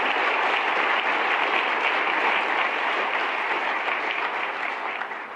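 Large audience applauding steadily, the clapping fading out near the end.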